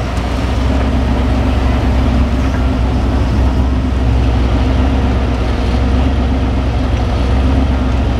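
Volvo wheel loader's diesel engine running steadily with a low, even hum as the machine lifts and carries an off-road buggy on its arm.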